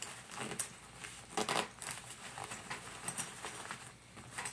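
A laptop backpack's front compartment being opened and its contents handled: a few short rustles and scrapes of fabric and items.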